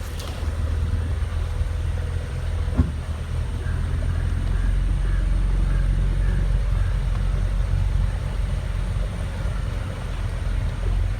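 Motorboat engine running with a steady low rumble. A single sharp knock comes about three seconds in.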